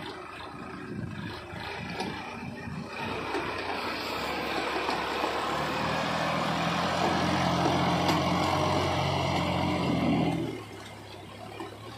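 Sonalika 42 RX tractor's diesel engine running under load as it hauls a trolley heaped with earth up onto a dirt track, growing louder as it comes close and passes by. The engine sound falls away abruptly near the end.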